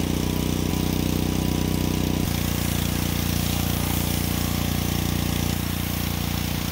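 Pressure washer running steadily as the boat's aluminum hull is washed, its motor drone mixed with the hiss of the spray. The sound shifts about two seconds in.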